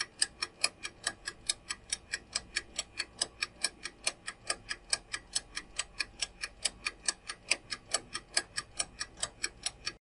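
Countdown timer sound effect: a clock ticking steadily, about four ticks a second, for ten seconds, then stopping abruptly.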